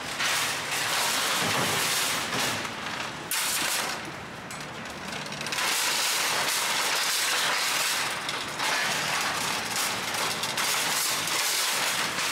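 Shopping cart wheels rolling over a concrete floor, a steady rattling clatter with a couple of brief lulls.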